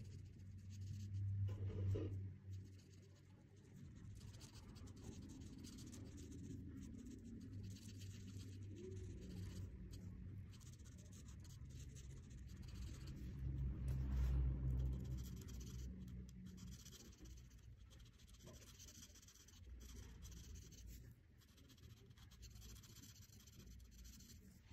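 Felt-tip marker scratching across paper in repeated short strokes as letters are coloured in, faint. Two low rumbling bumps, about two seconds in and around fourteen seconds, are the loudest sounds.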